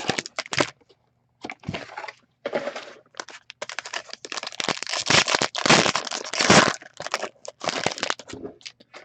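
Crinkling and crackling of plastic wrapping being torn open as a sealed box of trading cards is unwrapped, in irregular bursts of rustling with a short pause about a second in.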